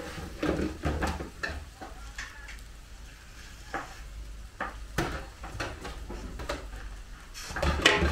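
A long metal ladle scraping and scooping fried rice in a large steel wok, with irregular scrapes and clinks against the pan, loudest near the end.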